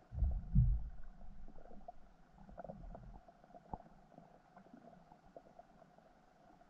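Low muffled underwater rumble of water pushed against the camera as a peacock bass swims close past the lens, loudest about half a second in and dying away after about three seconds, with scattered faint underwater ticks.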